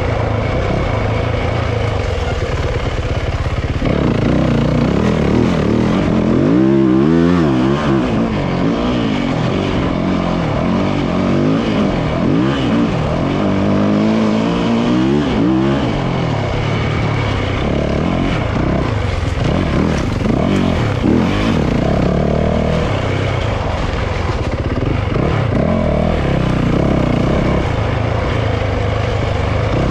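Yamaha YZ450F four-stroke single-cylinder dirt bike engine under way, revving up and down repeatedly as the throttle is worked. The hardest revving comes in the first half.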